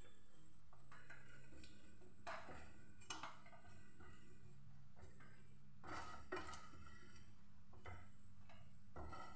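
Spatula scraping and knocking against a nonstick frying pan as fried dhoka pieces are moved and lifted out of the oil: several faint, separate scrapes and clicks, spaced irregularly, over a low steady hum.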